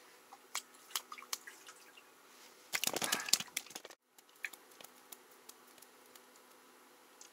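Wet clicks and handling noises of a freshly caught ripus being taken off the hook by hand, with a louder wet scuffle about three seconds in. The sound stops abruptly about four seconds in, leaving a faint steady hum with a few small clicks.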